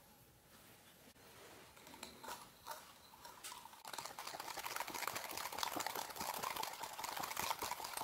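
A wire whisk beats powdered sugar and lemon juice into a thick glaze in a ceramic bowl. It gives a rapid clatter and scrape of wires against the bowl, with only scattered quiet taps in the first few seconds, then turns steady and louder about halfway through.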